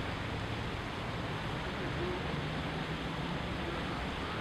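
Steady outdoor background noise: a low rumble and hiss of wind and distant city traffic.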